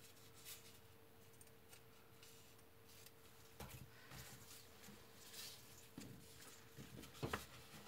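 Near silence: soft rustles and a few light taps of a card gift bag and satin ribbon being handled, strongest as two taps near the end, over a faint steady hum.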